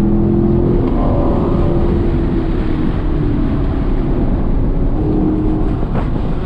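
Chevrolet Camaro V8 running at track speed, heard from inside the cabin over steady road and wind noise. The engine note falls away about a second in as the car slows, then picks up again briefly near the end.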